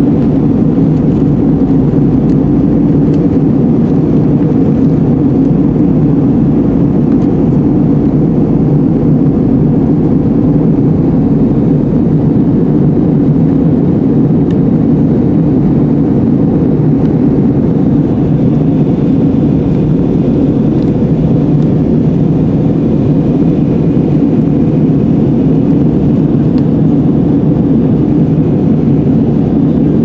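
Steady cabin noise inside an Airbus A319 in descent: a low, even roar of airflow and jet engines, unchanging throughout.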